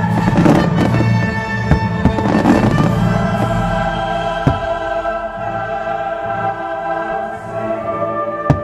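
Fireworks crackling and banging over loud choral and orchestral music. The crackle of glittering stars is dense for the first three seconds and thins out, with single sharp bangs about four and a half seconds in and near the end.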